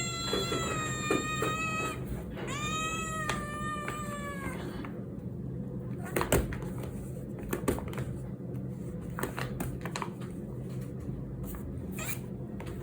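Aggressive domestic cat yowling: two long, drawn-out calls, the second rising then slowly sinking, ending about four and a half seconds in. After them come a few short scattered knocks and taps.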